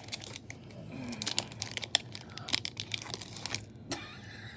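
Foil wrapper of a Pokémon card booster pack crinkling and tearing as it is pulled open by hand. A run of sharp crackles that thins out after about three and a half seconds.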